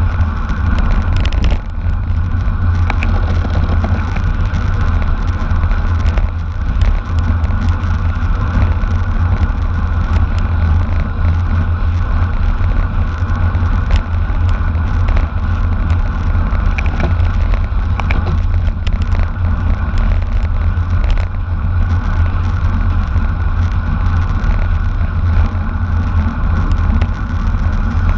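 Steady wind buffeting and road rumble from a bicycle race at speed, with a few faint ticks.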